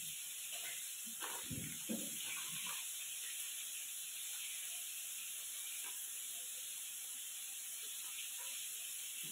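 Faint steady hiss with a few soft rustles and light clicks in the first few seconds, from hands mixing dry food in a steel plate.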